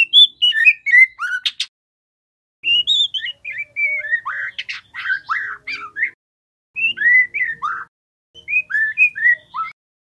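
Juvenile white-rumped shama (murai batu trotol) singing: four short bursts of rapid whistled notes and chattering, with brief silent gaps between them.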